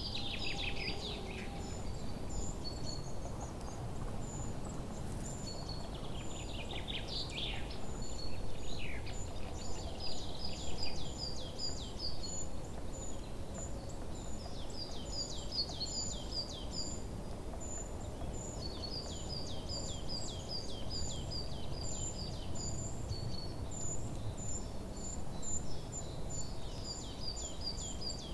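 Small songbirds singing in woodland: runs of quick, falling chirps repeated in series, with thin high notes above them, over a steady low background rumble.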